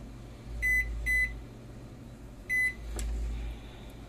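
Microwave oven keypad beeping three times, a short high beep for each button pressed as the kitchen timer is set.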